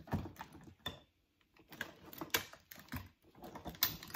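Tangled strings of plastic electric candle lights with glass bulbs clattering and rustling as hands dig through them: a run of irregular light clicks and rattles.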